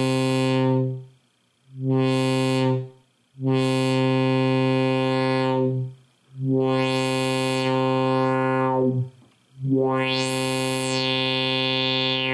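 ARP Axxe analog synthesizer playing the same low, buzzy note five times while its voltage-controlled filter cutoff is moved, so the tone goes brighter and duller. Near the end a resonant sweep rises high and falls back. The just-repaired filter is filtering again as it should.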